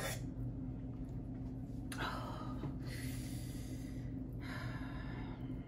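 A person breathing out in two long breathy puffs, about two seconds in and again around three to four seconds in, over a steady low hum.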